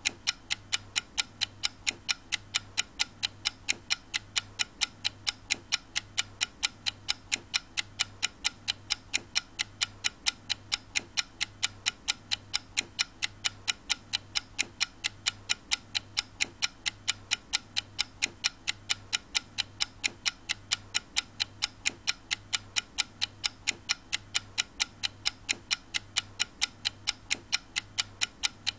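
Clock ticking steadily, about two sharp ticks a second, over a low pulsing hum.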